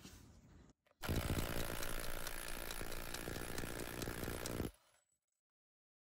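Cordless Parkside 20 V impact driver converted to a 1/2-inch impact wrench, hammering in reverse on an M20 bolt held in a vise and breaking it loose. The rapid, steady hammering of the impact mechanism runs for nearly four seconds, then cuts off abruptly.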